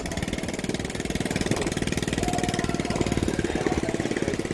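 An engine running steadily nearby with a rapid, even putter.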